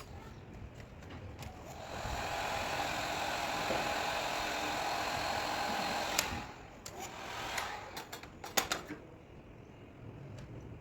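A small electric blower motor runs with a steady whir for about four seconds, then stops. A few sharp clicks and taps follow.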